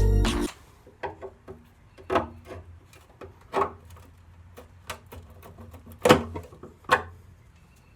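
Background music cutting off at the start, then scattered knocks and clunks of parts and tools being handled in a workshop, with about five louder ones.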